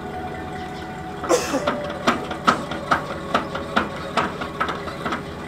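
Boat-trailer tongue jack cranked by its handle, clicking metallically at an even pace of about two to three a second, after a short scraping rasp about a second in. A steady hum runs underneath.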